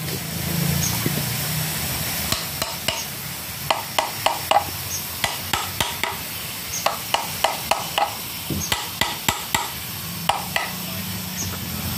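Small hammer tapping on the torch-heated cast-metal hub of a water-pump impeller, about two dozen sharp metal-on-metal strikes in quick runs of about five a second with short pauses between them. The aim is to free the impeller, rusted onto its shaft, from the pump.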